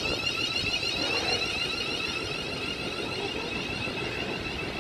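Electric train at the station, its traction equipment giving a high whine that slowly rises in pitch over a steady rumble.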